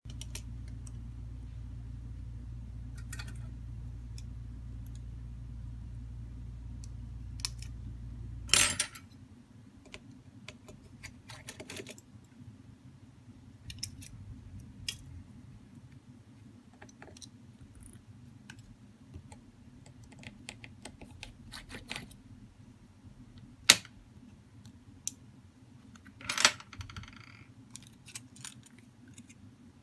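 Scattered small clicks, taps and rattles of hand work on a smartphone's opened insides: a precision screwdriver, tiny screws and the internal parts being handled, with a few louder sharp clicks. A steady low hum sounds underneath for the first nine seconds or so and cuts off with a loud click.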